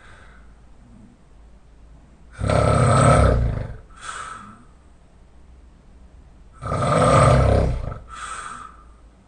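Loud open-mouth snoring from a person lying on their back: two long snores about four seconds apart, each followed by a shorter, quieter breath sound.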